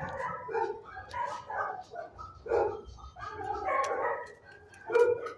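Dogs barking in an animal shelter's kennel room, a string of short barks with a loud one about five seconds in.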